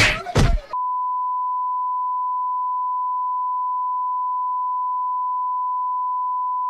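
Under a second in, the soundtrack cuts off and a steady, pure beep starts and holds unchanged at one pitch. This is the reference test tone that goes with colour test bars.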